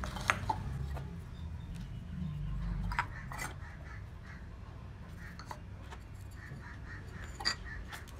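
Miniature terracotta clay pots clinking and knocking as they are lifted out of a cardboard box and set down on a tiled floor: a few separate sharp taps, the loudest about a third of a second in and near the end, over soft handling noise.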